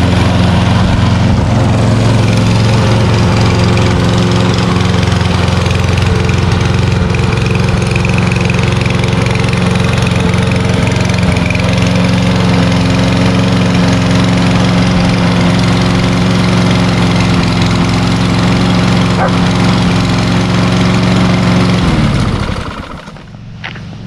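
Husqvarna 6021P walk-behind lawnmower's Kohler 149cc single-cylinder engine running steadily at an even speed. The sound breaks off sharply near the end.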